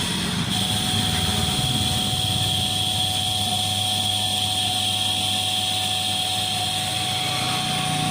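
Electric motor running steadily with a high-pitched whine over a hiss.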